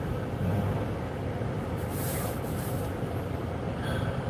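Steady low hum of a car's engine and road noise heard from inside the cabin, with a brief hiss about two seconds in.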